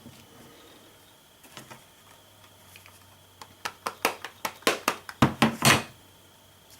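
Rapid run of sharp taps and knocks, about a dozen in two and a half seconds and loudest near the end, from a wood-mounted rubber stamp being handled and pressed onto card stock on a table.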